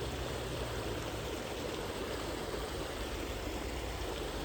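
Fast-flowing mountain trout stream rushing steadily over rocks.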